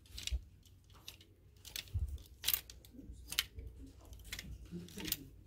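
Clear plastic clothes hangers clicking and scraping against each other and the rail as garments are pushed along a tightly packed rack, a string of irregular sharp clicks with a couple of duller knocks.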